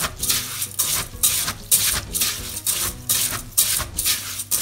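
A hand scrubbing wet short-grain rice in a stainless steel pot, rubbing the grains against each other in regular strokes about three a second. This is the rinsing stage that polishes the starch off the rice.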